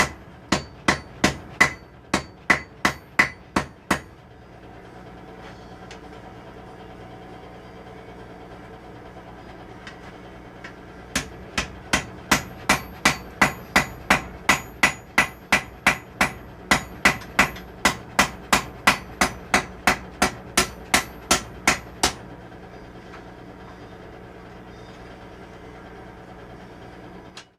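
Hand hammer striking hot steel on an anvil, drawing out the reins of blacksmith tongs, in a steady rhythm of about two and a half blows a second with a bright ring on each blow. The hammering stops after about four seconds, gives way to a steady low hum, resumes at about eleven seconds and stops again a little after twenty seconds.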